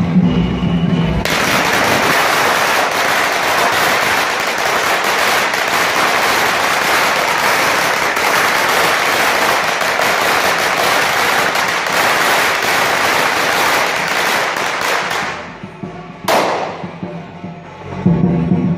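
A long string of firecrackers going off in a dense, rapid crackle for about fourteen seconds, starting about a second in and thinning out at the end. About a second later comes one single loud bang.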